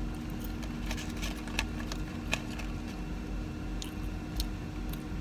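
Steady low hum of a running car, heard inside the cabin. Over it come scattered small clicks and crunches of someone eating French fries.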